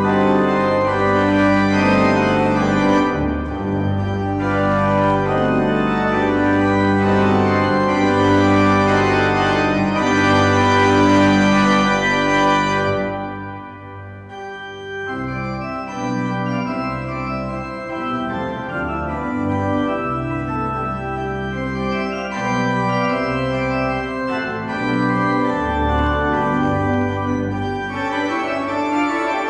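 Organ music: sustained chords, full and loud for about the first thirteen seconds, then dipping briefly and going on softer with low bass notes.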